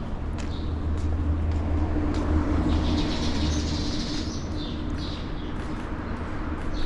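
A passing vehicle: a steady low rumble that swells to its loudest about two to three seconds in, then fades.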